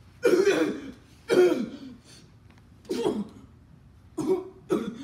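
A person coughing hard in five short, harsh bursts, spaced unevenly.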